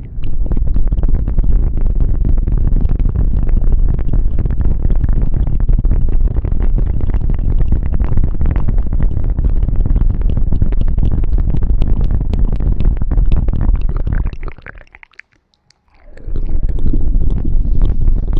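ASMR ear cleaning: scratching and rubbing right on the microphone, heard as a loud, dense crackling rumble. It breaks off about fifteen seconds in and resumes a second later.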